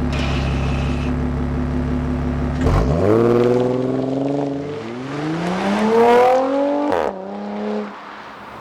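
Audi Q5 3.2 V6 exhaust through an AWE Tuning non-resonated system: a steady low drone, then, about three seconds in, revs climbing hard, a drop, a second climb and a sharp drop about seven seconds in, like a car accelerating through its gear shifts, before it eases off.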